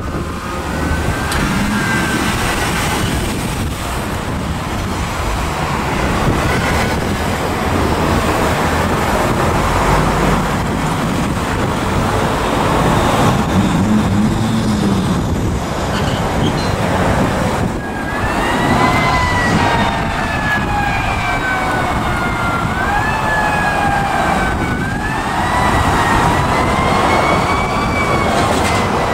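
Traffic passing, then from about two-thirds of the way in an emergency vehicle's siren wailing, its pitch climbing quickly and falling back slowly over and over, as a fire engine comes up through the traffic.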